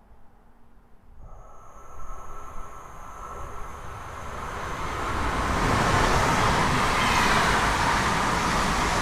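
MTR Express X74 electric train approaching through the station. Two steady high tones come in about a second in, then the rolling noise grows steadily louder and is at its loudest from about five seconds in.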